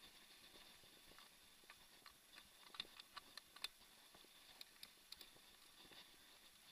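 Near silence, broken by faint, irregular clicks and ticks from a mountain bike rolling over a sandy dirt trail, bunched mostly in the middle.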